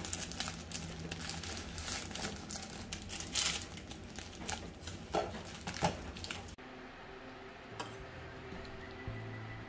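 Plastic film wrapper of a seaweed-wrapped rice ball crinkling and crackling as it is peeled open by hand. It stops suddenly about six and a half seconds in.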